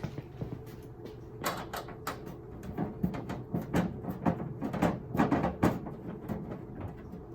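Plastic back cover of a CRT TV being worked loose and handled: irregular knocks, clicks and scrapes.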